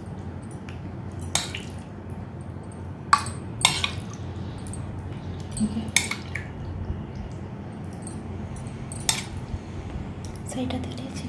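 Metal spoon clinking against glass dishes as cubes of set jelly are scooped and laid onto custard: about six sharp clinks, spaced a second or more apart.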